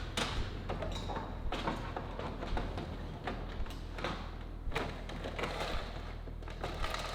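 Scattered knocks, taps and rustling as interior trim panels and their screws are handled and fitted in a car's cabin, over a steady low hum.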